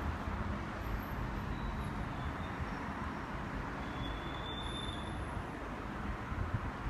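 Steady outdoor background noise: an even low rumble and hiss, with no distinct events standing out.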